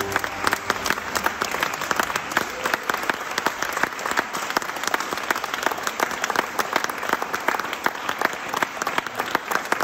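Audience applauding: dense, steady clapping from many hands, with sharp individual claps from someone close by.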